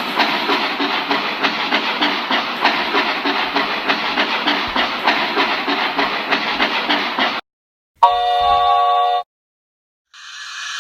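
Steam locomotive chuffing in a steady rhythm for about seven seconds. After a short pause comes a brief steam whistle blast of about a second. A steady hiss of steam starts near the end.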